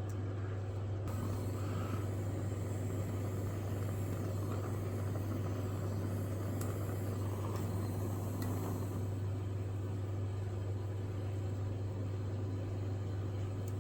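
A steady low hum throughout, with no distinct events over it.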